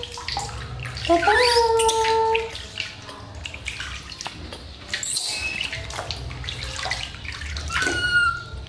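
A baby macaque cries in distress at being bathed: one long call that rises and then holds, about a second in, and a shorter, higher cry near the end. Water splashes and slops in a metal basin throughout.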